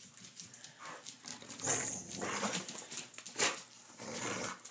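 A dog making short noises, several in a row, starting about two seconds in.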